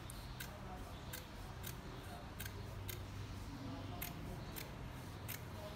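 Scissors snipping through a folded strip of fabric, a series of short, sharp snips spaced about half a second to a second apart.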